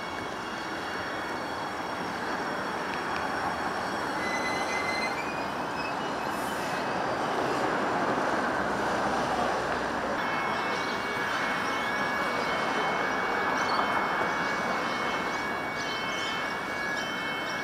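Adelaide Metro 4000 Series Bombardier electric train coming slowly into the station, with a steady rumble of wheels on rail that grows a little louder. Thin high-pitched squealing tones join about halfway through.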